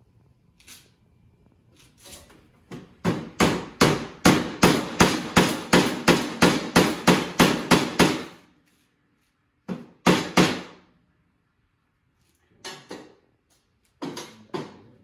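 Claw hammer driving a glued wooden dowel into a hole drilled through a window sash's mortise-and-tenon joint. It starts with a few light taps, then a quick, even run of about sixteen blows at roughly three a second, then a few scattered pairs of taps near the end.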